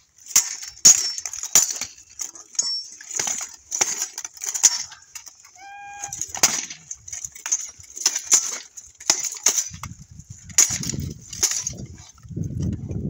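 Steel longswords clashing against each other and against plate armour in a sparring bout: a rapid, irregular series of sharp metallic clanks, with the armour plates and mail jingling between strikes. A brief ringing note sounds about halfway through.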